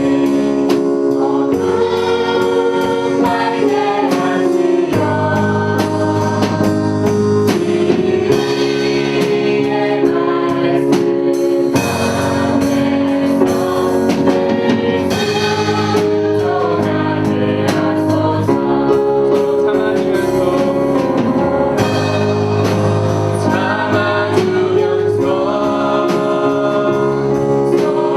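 A choir singing a gospel praise song with a band: a steady bass line and a drum beat under the voices.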